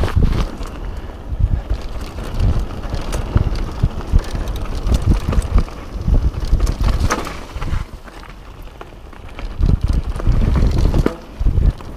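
Wind buffeting the camera microphone over the rumble and rattle of a Kona Process mountain bike's tyres and frame riding fast down a forest trail, with frequent knocks as it jolts over wooden boardwalk slats at the start and then rocks and roots. It quietens for a couple of seconds about eight seconds in, then grows loud again.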